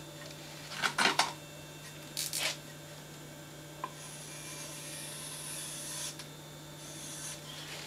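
Marker being drawn along the face of a wooden board, a steady scratchy rasp for about two seconds, after a few knocks and rustles as the board and marker are picked up.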